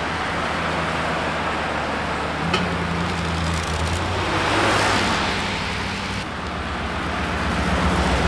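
Road traffic: a car passes close by about halfway through with a swelling rush of tyre noise, while a Dodge Ram pickup towing an empty car trailer approaches with a steady low engine hum that grows louder near the end as it pulls up.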